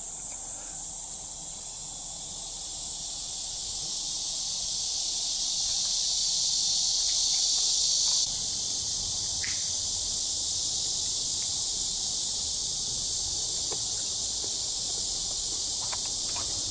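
A dense, steady chorus of summer insects: a high buzzing hiss that swells over the first several seconds and drops a little, suddenly, about eight seconds in. A few faint ticks come near the end.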